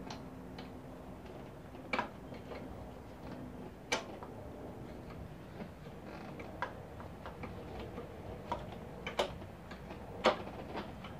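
Scattered light clicks and knocks as a Honda Rebel 250's carburetor is worked back into place by hand with a tool. A handful of sharper clacks come through, the loudest near the end.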